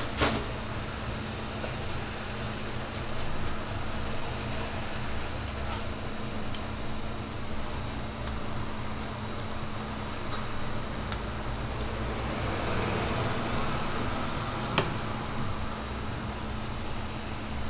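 Steady sizzling of bread slices toasting on a flat-top griddle, over a low steady hum. Light clicks and scrapes of a metal spoon spreading sauce on the bread, with a sharper click near the end.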